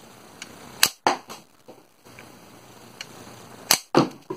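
Homemade wooden QBZ95 toy rifle, slingshot-powered, firing twice about three seconds apart; each shot is a sharp snap followed about a quarter second later by a duller knock.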